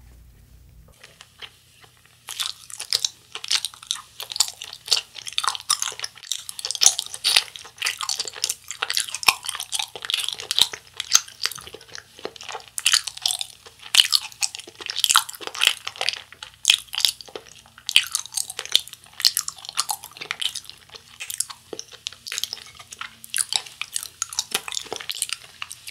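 Chewing of a Japanese wagashi sweet: a dense, irregular run of sticky mouth clicks and smacks, starting about two seconds in and going on throughout.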